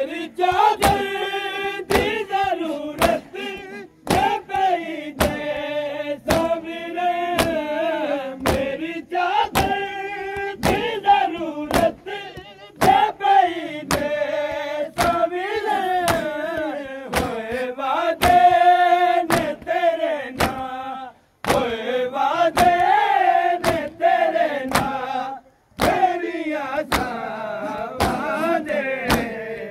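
Group of men chanting a Shia noha (mourning lament) in unison, with the sharp, even strikes of matam, hands beating on chests, about twice a second.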